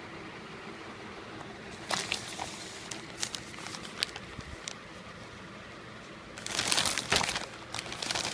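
Packaging being handled: a few sharp clicks and short crinkles, then a louder burst of rustling and crinkling near the end.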